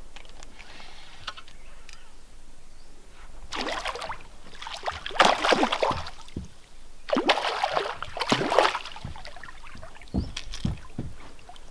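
A hooked hampala barb thrashing at the water's surface beside the boat: three bursts of splashing, the loudest in the middle, then a few dull knocks near the end.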